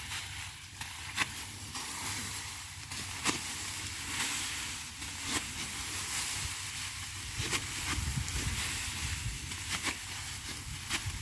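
Rice stalks being cut by hand with a sickle: scattered crisp snaps over a steady rustling hiss of the dry paddy.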